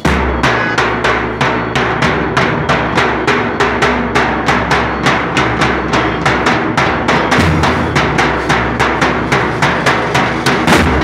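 A Nasik dhol troupe playing big steel-shelled bass dhols with sticks: a loud, fast, even beat of about four strikes a second over a deep, continuous boom.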